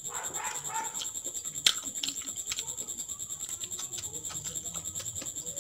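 Close-miked eating sounds: wet chewing and lip-smacking with frequent small mouth clicks, and one sharp click about one and a half seconds in.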